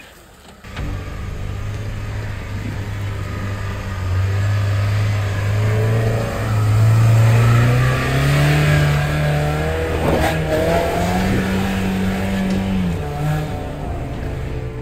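Off-road 4x4's engine revving, its pitch rising and falling, getting louder from about four seconds in.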